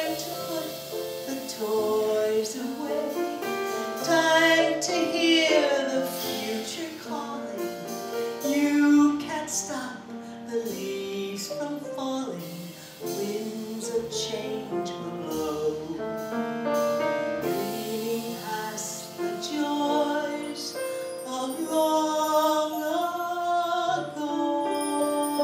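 A woman singing a cabaret song into a microphone, accompanied by piano and double bass.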